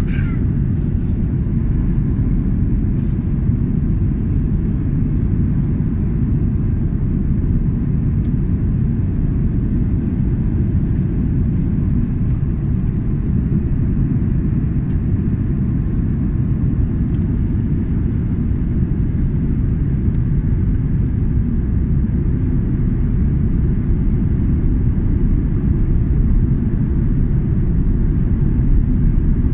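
Airbus A330 cabin noise during descent, heard from a window seat over the wing: engine and airflow noise as a deep, steady rumble that holds level throughout.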